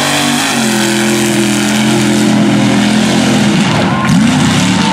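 Unlimited-class mud racing truck running flat out down a dirt track, its engine held at a high, steady pitch over a hiss of flung dirt. About three and a half seconds in, the revs swoop down and up in quick glides as the throttle comes off and back on.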